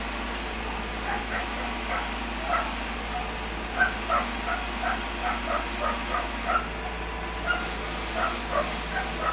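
A dog barking over and over, about two barks a second, starting about a second in, over a steady background hum.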